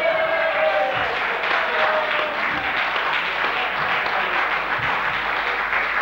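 A theatre audience applauding steadily. In the first second or so, a held pitched note slides down in pitch and fades under the clapping.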